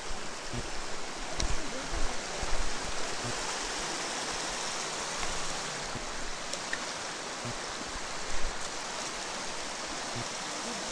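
Steady rushing noise, with a few faint low knocks.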